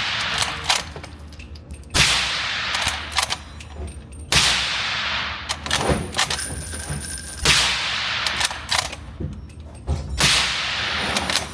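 Four suppressed shots from a Q Mini Fix bolt-action rifle fitted with a Black Thunder Chicken suppressor, fired about every two to three seconds. Each shot rings on in a long echo, with smaller clicks and knocks between shots.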